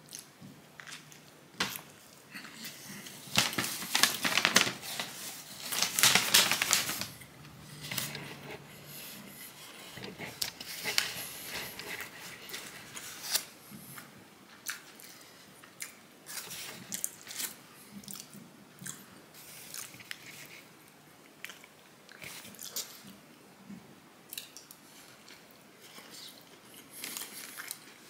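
A person biting and chewing a turkey wrap with lettuce in it: irregular crunches and wet mouth clicks. The loudest run of bites and chewing comes about four to seven seconds in, followed by quieter scattered chewing.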